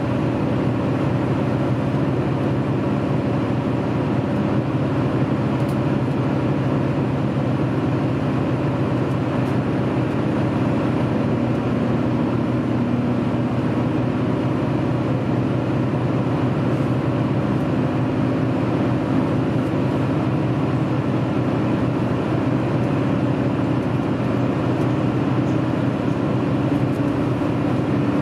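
Steady running noise heard inside a diesel passenger train's carriage at speed: a constant low engine drone under the rush of wheels on the rails.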